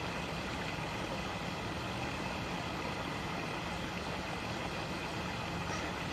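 Creek water running over rocks: a steady, unbroken rush.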